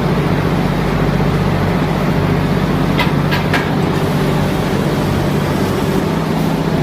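A machine running with a steady low drone, with three quick clicks about three seconds in.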